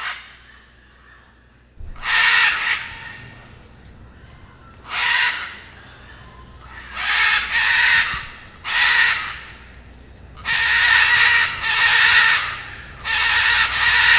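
Macaws squawking: harsh, raspy calls in repeated bouts of about half a second to a second, coming thicker and almost unbroken over the last few seconds.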